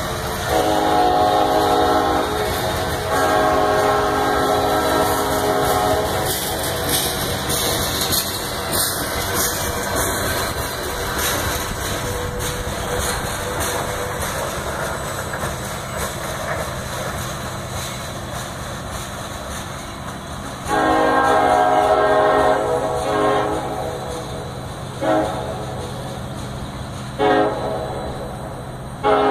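Union Pacific work train's locomotive horn sounding from well up the line: two long blasts near the start, then a long blast and three short ones in the last ten seconds. Underneath, the rumble and wheel clatter of loaded rock cars rolling along the rails.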